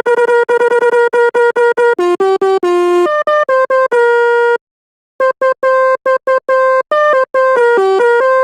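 Sampled telolet basuri bus air horn played as a melody in FL Studio Mobile: a fast run of short notes at a few pitches, with a half-second pause about four and a half seconds in before the notes resume.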